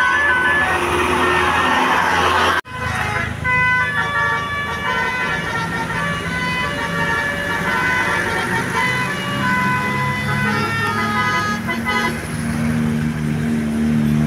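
Basuri telolet bus horn playing a tune in short, stepped notes, with a brief break about two and a half seconds in. A low engine note comes in near the end.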